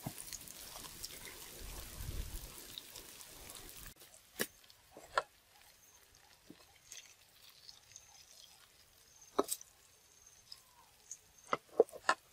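Palm grubs frying in a steel wok, a steady sizzle that cuts off suddenly about four seconds in. After that a metal spatula knocks and scrapes against the wok a few times, with a quick run of knocks near the end.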